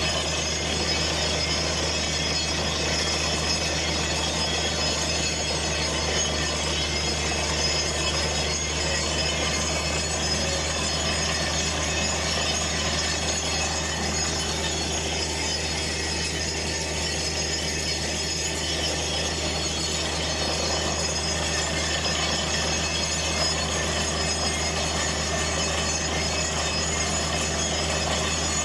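Borehole drilling rig running steadily with a deep, even hum. Over it comes a continuous hiss and splash as water and cuttings are blown out of the borehole at the wellhead, a sign that the bit has reached water.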